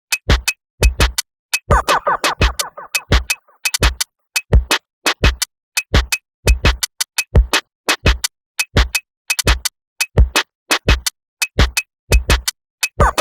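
Electronic music with a steady drum-machine beat of sharp clicks and deep kicks, with a short synthesizer phrase about two seconds in.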